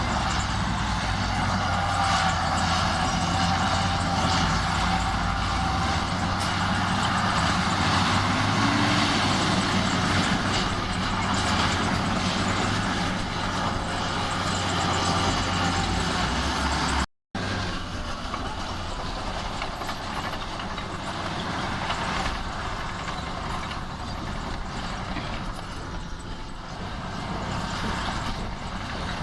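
Heavy diesel engine of an earthmoving machine running steadily under load, with a brief cut to silence about two thirds of the way through, after which the engine continues a little quieter.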